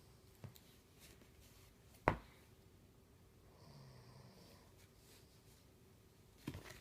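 A sleeping man's faint snore: one low, buzzy breath about a second long in the middle. A few soft clicks sound around it, the loudest a sharp click shortly before the snore.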